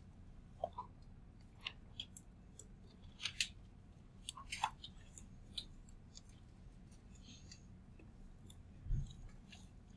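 Faint scattered clicks and crackles, like small objects being handled, in the first half, then a single soft low thump about nine seconds in.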